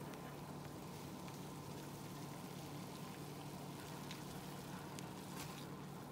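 Water at a rolling boil in a steel pot: a faint, steady bubbling hiss with a few small pops, the clearest about four to five seconds in, over a low steady hum.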